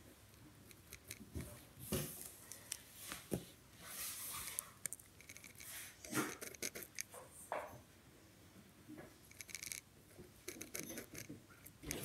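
Ballpoint pen drawing on lined notepaper: faint, scattered scratching strokes with a few light clicks.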